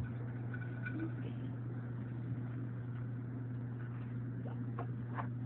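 A steady low hum, with a few faint light clicks near the end.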